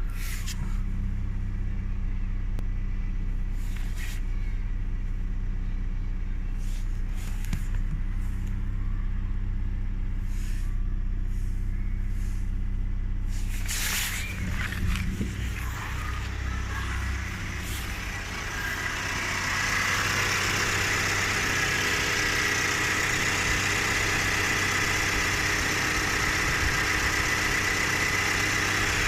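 Opel Astra K engine running at idle with a steady low hum. About two-thirds of the way in, a louder steady hiss with a high-pitched whine joins: the loud engine noise the owner is complaining about.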